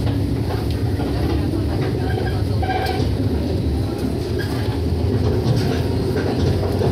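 Interior running sound of a Shinano Railway 115-series electric train between stations: a steady rumble of wheels on rail and running gear.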